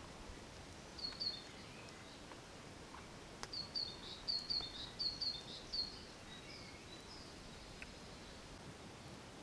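A small songbird chirping: two short high notes about a second in, then a run of quick paired chirps from about three and a half to six seconds, over a steady outdoor background hiss.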